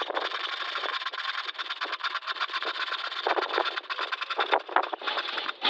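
Scroll saw running with its blade reciprocating fast, giving a steady, rapid mechanical chatter; it is set to a high speed that is about to be turned down.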